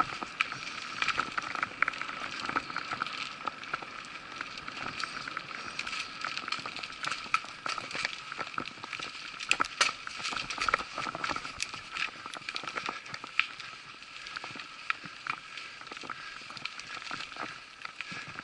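Mountain bike ridden along a dirt forest trail: continuous tyre and trail noise with many sharp clicks and rattles from the bike over rough ground, a few louder knocks about halfway through.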